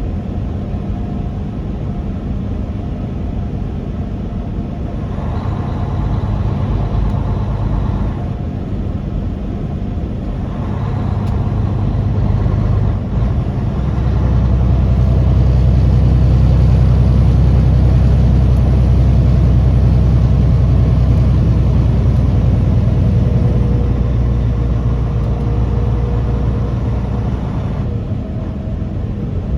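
Truck engine and road noise running steadily. The low engine drone grows louder about halfway through and stays up for some fourteen seconds before easing back.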